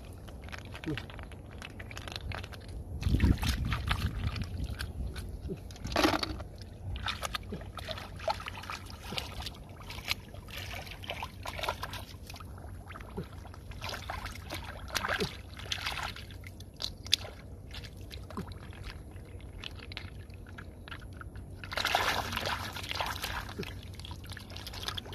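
Shallow muddy water sloshing and splashing as hands scoop snails off the bottom, with water dripping and trickling from the lifted handfuls; irregular splashes, the strongest a few seconds in, again about six seconds in and near the end.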